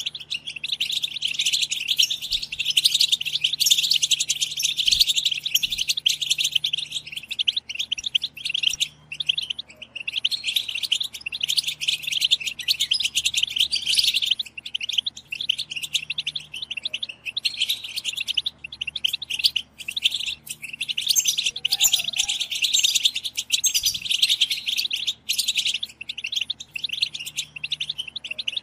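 Several European goldfinches chattering together: a dense stream of quick, high twittering calls with a few short breaks. These are the 'betbeta' calls used to stir male goldfinches into song.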